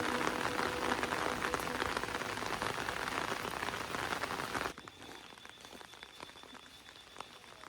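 Rain falling, a dense hiss of many small drops. It cuts off sharply about four and a half seconds in, leaving a much quieter background with a faint high steady tone and scattered drips.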